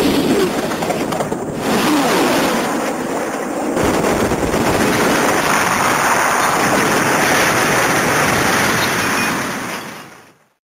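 Earth Garon Key toy sound effect: a long, loud mechanical noise like a big machine's engine running, with a brief falling tone about two seconds in. It fades out shortly before the end.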